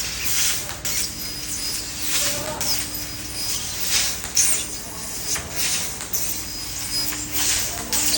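CNC laser cutting machine at work on sheet metal: repeated bursts of hiss about once a second, with short squeaky rising and falling whines and a faint steady high tone underneath.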